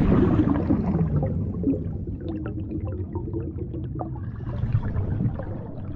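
Water sound effect: a low rushing wash that fades over the first two seconds into quieter gurgling, scattered with many small drips or bubbles.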